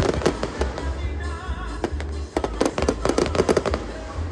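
Aerial fireworks bursting in rapid crackling volleys, one cluster of sharp cracks near the start and another from about two and a half seconds in, with music playing underneath.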